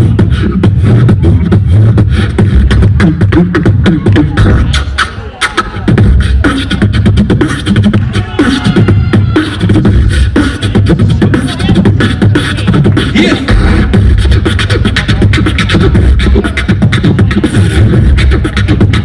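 Beatboxing into a microphone through the PA: a fast, steady stream of mouth-made percussion with a heavy amplified bass, briefly dropping away about five seconds in.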